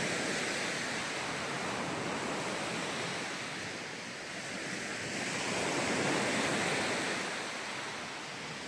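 Small waves breaking and washing up a sandy beach, the surf swelling twice, loudest near the start and again about six seconds in.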